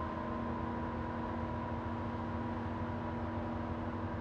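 A steady mechanical drone: a low rumble with a few constant hum tones and a light hiss, unchanging throughout.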